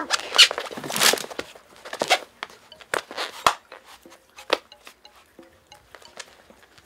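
A tabby kitten and a tortoiseshell cat play-fighting on a tatami floor: short scuffling rustles and light knocks of paws and bodies. The noise comes thick at first and thins out to scattered taps, dying away after about four and a half seconds.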